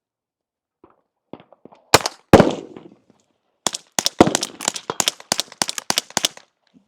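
Gunshots: two single shots about two seconds in, the second the loudest, then a rapid string of about a dozen shots.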